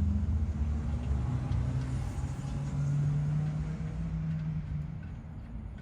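A motor vehicle's engine running close by, a low steady hum that shifts slightly in pitch and fades away near the end.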